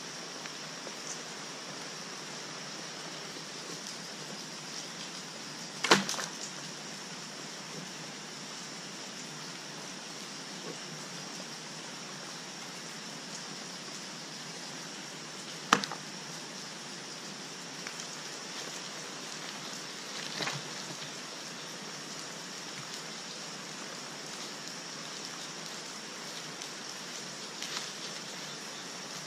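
Steady rushing background hiss with sharp wooden knocks: a loud one about six seconds in and another near sixteen seconds, as a bundle of cut sticks is dropped and set down on the ground.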